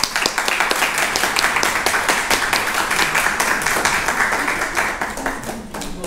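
Audience applauding, a dense patter of many hands clapping that dies away near the end.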